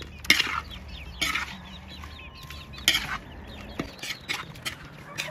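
A metal spatula scraping and knocking against a large steel wok several times while stirring, with chickens clucking in the background.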